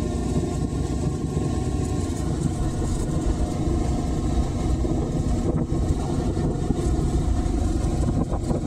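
Motorcycle engine running steadily at low road speed over cobblestones, with a rough rumble from the tyres on the cobbles and wind on the microphone.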